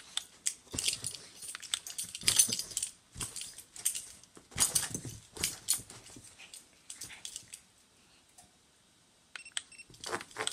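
A small dog scrabbling and pouncing at a laser dot on carpet: its claws scratch the carpet in quick, irregular bursts, with a metallic jingle. It goes quiet for about two seconds near the end, then the scratching starts again.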